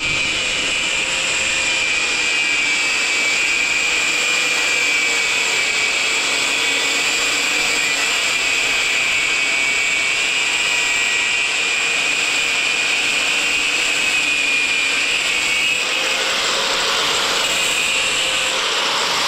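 Angle grinder with a cut-off disc cutting through a metal bar: a steady high whine over a grinding hiss with no break. The pitch sags slightly under the load of the cut, and the hiss grows stronger about sixteen seconds in as the disc bites at a new angle.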